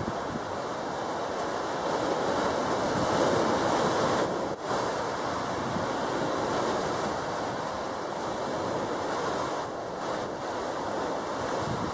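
Steady rush of sea surf and wind, with a brief drop about four and a half seconds in.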